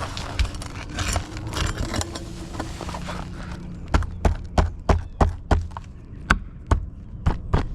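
Scraping and handling noise, then from about four seconds in a run of sharp taps or clicks, roughly three a second.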